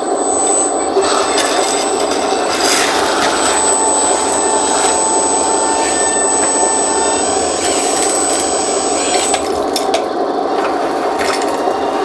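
Electric hydraulic pump and motors of a 1:14 scale Double E E116 RC skid steer loader running with a steady whine. A thin high whine cuts off about nine seconds in, and a few mechanical clicks come near the end.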